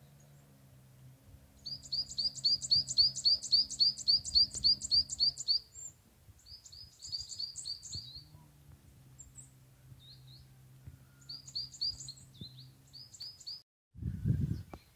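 A songbird singing fast runs of repeated high chirping notes, about four or five a second: one long run, then two shorter ones. A faint low steady hum sits underneath, and there is a brief low thump near the end.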